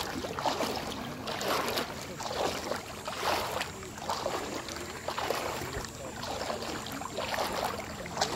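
Small waves lapping in shallow lake water, with soft irregular splashes about one to two a second.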